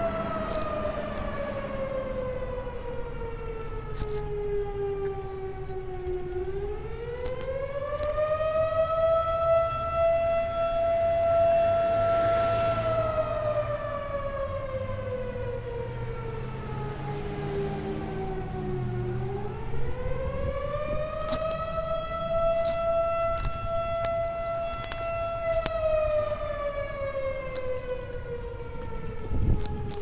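Fire-department outdoor siren wailing. Its tone holds high, slides slowly down over several seconds, then winds quickly back up and holds again, twice over.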